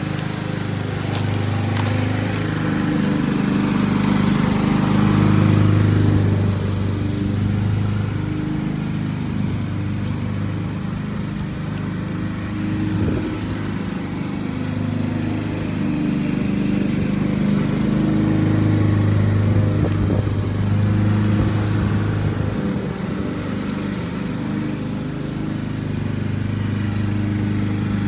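Lawn mower engine running steadily, getting louder twice and then easing off again.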